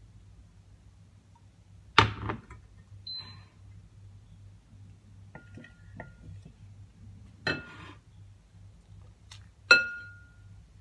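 Kitchen utensils and cookware knocking together: three sharp clanks, about two seconds in, around seven and a half seconds and near the end, the first and last loudest and the last ringing briefly. A few lighter clicks come in between, over a faint steady low hum.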